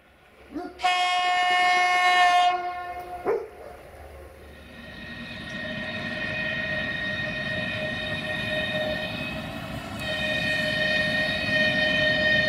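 Diesel locomotive horn: one loud blast of a little under two seconds, then a short toot about a second later. After that the approaching DB Cargo Ludmilla-type diesel locomotive and its train run with a steady high-pitched tone that grows louder.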